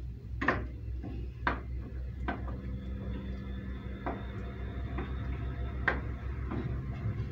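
A spoon stirring crushed raspberries and peaches with pectin in a stainless steel pot, knocking against the pot about five times, over a steady low hum.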